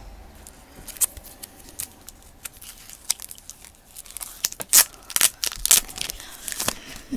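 Trading cards and foil pack wrappers being handled: scattered paper-and-foil clicks and rustles that grow busier in the second half.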